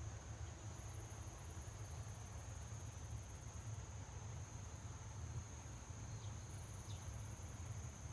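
Faint insects chirring, a very high-pitched hiss that comes and goes in stretches of a few seconds, over a steady low hum.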